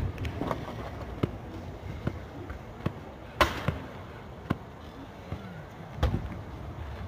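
Scattered sharp knocks and clacks of scooter and bike hardware on a skatepark ramp, about eight in all, with the loudest about three and a half seconds in, over a steady low rumble.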